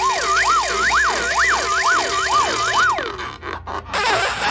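Cartoon sound effect: several overlapping whistle-like tones sliding quickly up and down, a few times a second, like a wobbling siren. It stops about three seconds in, and a burst of hiss follows near the end.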